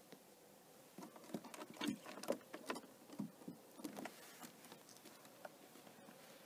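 Muskrat climbing out of the water onto wooden jetty boards: an irregular patter of small taps and scrabbles from its wet paws, from about a second in until past the middle, then quieter.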